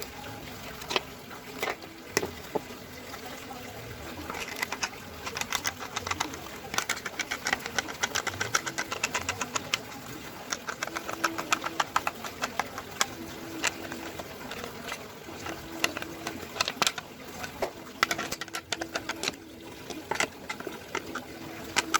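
A dove cooing repeatedly in short low calls, over quick, close-spaced scratchy strokes of handwork.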